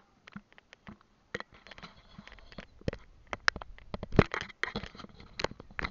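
Water splashing and lapping against a paddleboard close to the microphone, in irregular small splashes and clicks, sparse at first and busier from about a second and a half in.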